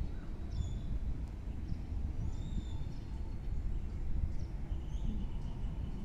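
Outdoor ambience: a steady low rumble with a few short, high bird chirps scattered through it.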